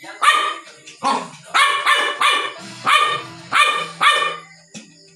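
Small dog barking in a quick run of about eight sharp, high-pitched barks, in play with a bamboo stick. The barks stop near the end.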